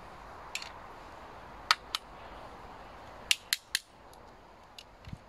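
Sharp metallic clicks of a small steel socket extension being handled and fitted: one click, then two, then three in quick succession.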